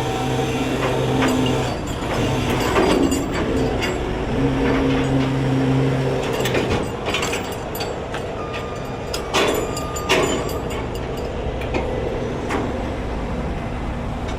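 Heavy truck engine running with a steady drone for the first several seconds, then a series of sharp metal clanks and knocks.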